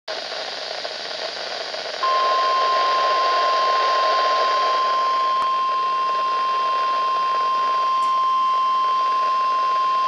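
Weather radio receiver's speaker hissing, then about two seconds in the NOAA Weather Radio 1050 Hz warning alarm tone comes on: one steady, loud, high-pitched tone. The tone is the broadcast's signal that a warning message, here a severe thunderstorm warning, is about to follow.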